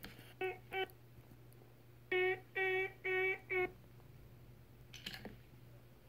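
A person humming short notes, all on the same level pitch: two brief ones near the start, then a run of four about two seconds in.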